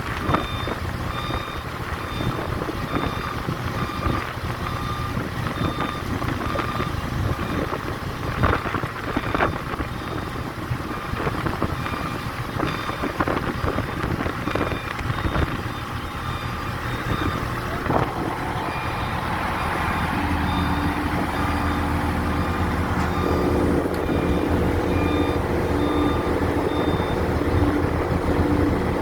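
Crane's diesel engine running with a repeating warning beep, and sharp metallic knocks in the first half. Later the engine note rises and grows louder, as under load, while the beeping fades out near the end.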